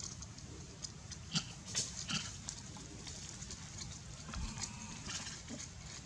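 Scattered light clicks and rustles from long-tailed macaques shifting about in dry leaf litter, over a low steady rumble.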